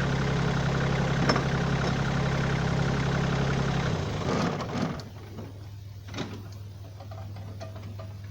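Kioti tractor's diesel engine idling steadily, then shut off about four seconds in, dying with a brief rattle. A single click follows a couple of seconds later.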